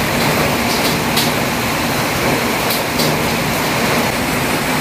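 Steady rain falling, an even hiss with a few sharper ticks.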